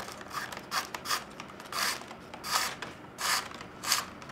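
Flat reed lashing strand being drawn through and rubbing against the reed rims of a basket: a run of about six short swishes.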